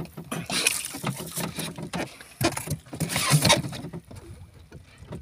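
Knocks, thumps and splashy rustling against the hull of a small wooden boat as a large live diamond squid is handled down into the hold. There are two louder flurries, one in the first second and one past the middle, before it settles.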